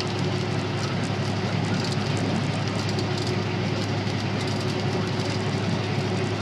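Steady drone of road and engine noise inside a vehicle's cab cruising at highway speed, with a constant low hum underneath.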